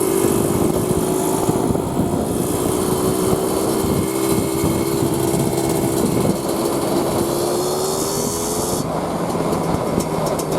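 1988 Kawasaki KMX 200 single-cylinder two-stroke engine running at a steady pace, its note sagging slightly and then rising a little near the end.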